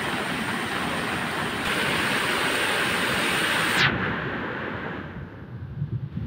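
Rain-swollen mountain torrent rushing down a rock face, a loud steady roar of falling water. The rush drops away suddenly about four seconds in, leaving fainter, gusty wind buffeting on the microphone.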